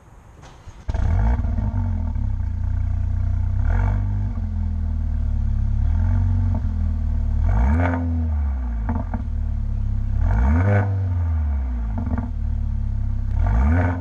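Mercedes-AMG A45's turbocharged 2.0-litre four-cylinder, heard close to its tailpipes, starts about a second in with a flare of revs, then idles. It is blipped about five times, each rev rising and falling back, with a few sharp pops from the exhaust between revs.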